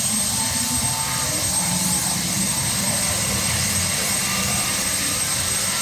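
UH-60 Black Hawk helicopter running on the ground: a steady, high turbine whine over a dense low rumble.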